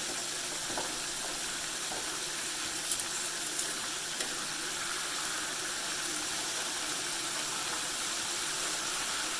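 Hot canola frying oil sizzling steadily in a cast iron skillet, with a few faint clicks.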